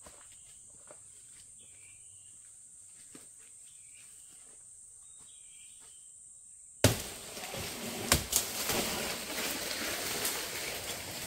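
Insects drone steadily at a high pitch, with faint chirps every second or two. About seven seconds in, a sudden loud rustling starts and continues, with two sharp knocks about a second later.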